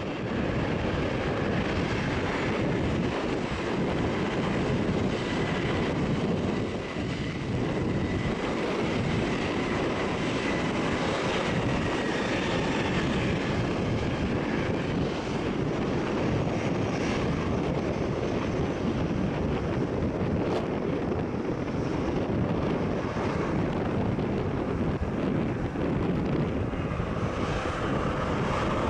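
McDonnell Douglas MD-11F freighter's jet engines running in a steady roar as the aircraft rolls out down the runway just after touchdown, with a faint high whine in the first half.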